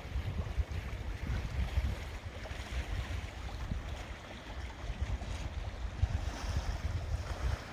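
Wind buffeting the microphone: an uneven, gusting low rumble over a faint outdoor hiss.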